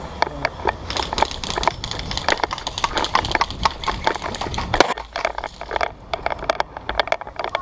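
Airsoft gunfire: many sharp, irregular clicks and cracks, several a second, from guns firing and BBs striking. One louder crack comes nearly five seconds in.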